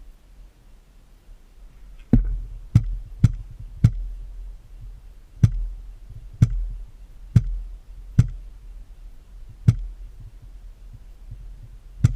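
A series of about ten sharp thumps starting about two seconds in, spaced irregularly half a second to a second and a half apart, over a low rumble.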